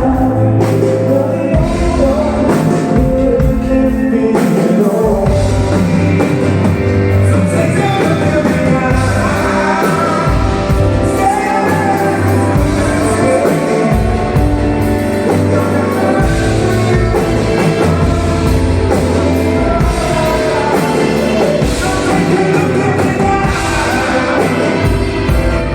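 Rock band playing a song with singing, drums, bass and guitar.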